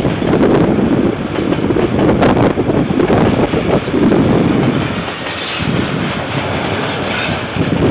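Freight train wagons rolling past on the track, a steady rumble of wheels on rail, mixed with wind buffeting the microphone.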